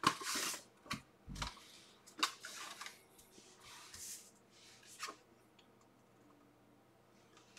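Paper envelope rustling and scraping in several short bursts as it is opened and handled, with a few light clicks and a dull thump about a second and a half in; the handling stops after about five seconds.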